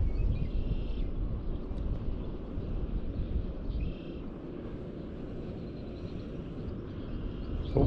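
Wind rumbling on the microphone over open water, with faint short bird calls three times and a brief bump right at the end.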